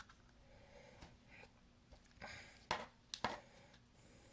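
A few short, sharp clicks and scrapes from a small pry tool working a glued-in iPhone SE battery loose, the adhesive still holding strongly. The clicks cluster about two to three and a half seconds in.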